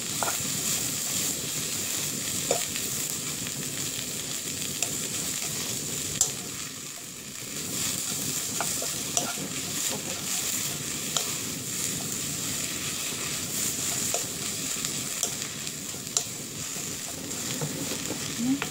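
Sliced shiitake mushrooms and julienned carrots sizzling steadily in a nonstick wok while a wooden spatula stirs and turns them, with occasional sharp taps and scrapes of the spatula against the pan.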